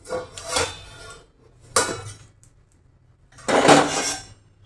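Steel plate used as a lid lifted off a kadai and handled: metal scraping and clanking against metal. There is a sharp clank near two seconds in, and the loudest, longer clatter comes about three and a half seconds in.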